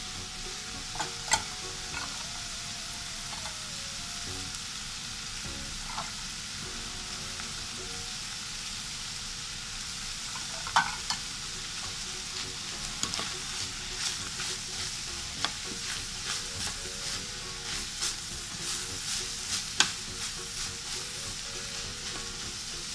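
Canned tuna frying in a stainless steel pan with a steady sizzle, stirred with a spatula that scrapes and knocks against the pan. The knocks come more often in the second half.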